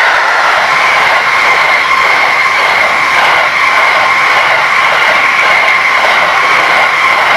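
Container flat wagons of a long freight train rolling past at speed, with a rhythmic clatter of wheels and bogies under a steady high-pitched squeal.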